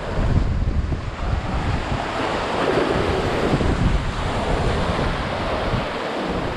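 Sea waves breaking and washing over shoreline rocks, with wind rumbling on the microphone. A wave surges loudest about halfway through, then its foam washes back.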